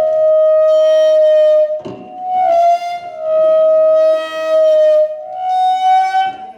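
Loud melody of long held, flute-like notes, a few slow notes stepping between two nearby pitches with short breaks between them.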